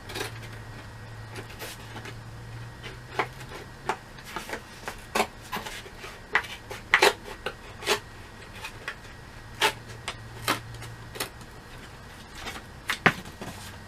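Irregular clicks, taps and rubbing from a cardboard pet carrying box being handled and worked on by hand, over a low steady hum that stops about eleven seconds in.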